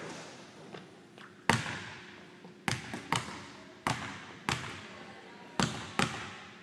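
Basketball bouncing on a hardwood gym floor, about eight bounces at uneven spacing with the loudest about a second and a half in, each followed by echo in the large empty gymnasium.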